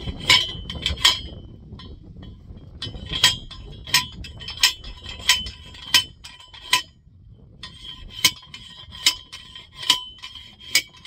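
Steel T-post being driven into the ground with a hand post driver: sharp metal-on-metal clangs that ring, in three runs of blows about two-thirds of a second apart, with short pauses between the runs.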